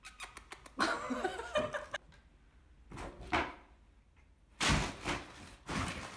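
Cardboard packaging being handled and tossed: a quick run of clicks, rustling, and about two-thirds of the way in a loud thud with a burst of noise.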